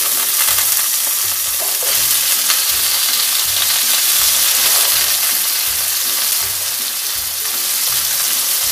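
Freshly added eggplant slices frying in hot oil in a pan with sautéed tomato, onion and garlic: a steady sizzle.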